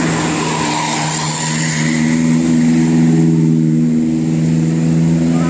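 A bus's diesel engine running steadily under load, a deep drone that rises a little in pitch about two seconds in.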